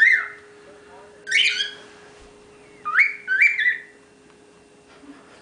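Young male cockatiel whistling its song: short rising whistled notes, one at the start, one a little over a second in, and two close together around three seconds in.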